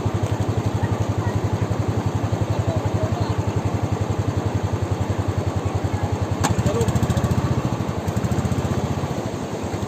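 Royal Enfield single-cylinder motorcycle engine running at low revs with a steady, even pulsing beat, over the rushing of river water. The engine grows louder around the middle and eases a little near the end, with a sharp click about six and a half seconds in.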